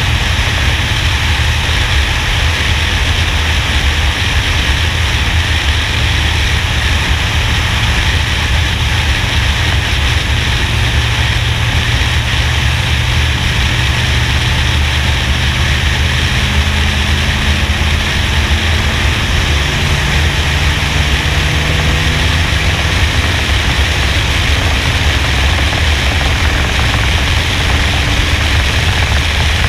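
NASCAR stock car's V8 at racing speed, heard as a steady, heavy rumble and rush of wind over the roof-mounted camera's microphone that mostly buries the engine. A faint engine note rises and falls partway through.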